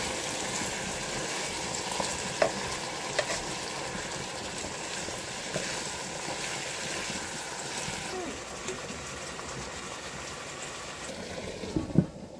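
Chicken pieces with onion and tomato sizzling in a nonstick pan while being stirred with a wooden spatula, with a few sharp scrapes and clicks from the spatula. Near the end a knock as the lid is set on the pan.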